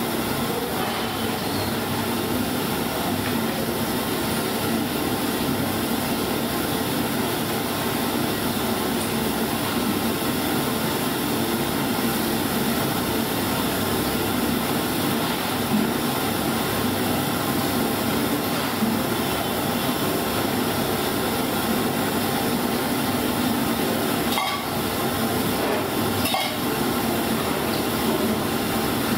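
Steady rushing noise of the gas burners under a dosa griddle, with the batter cooking on the hot iron. Two short metal clinks of a utensil near the end.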